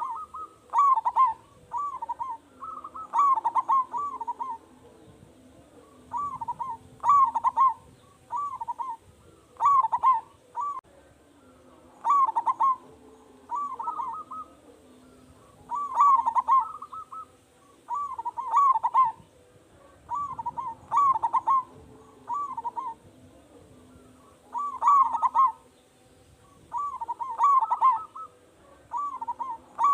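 Zebra dove (perkutut) cooing again and again: phrases of three or four quick notes, each phrase repeated every one to two seconds.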